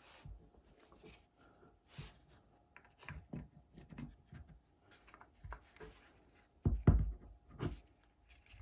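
Parts of a Makita cordless impact driver being handled and fitted back together by hand: scattered small clicks, rubs and light knocks of plastic and metal, with a louder knock cluster about seven seconds in.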